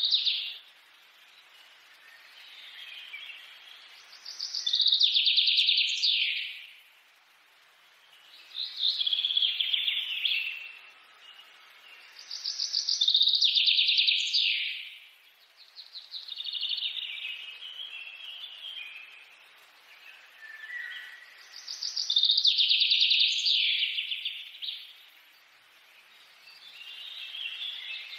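A songbird singing, repeating a loud phrase of rapid notes about every four to five seconds, with softer chirps between phrases.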